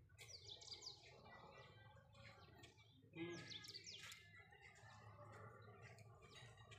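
Faint birds chirping: several short runs of quick, high chirps, about a second apart.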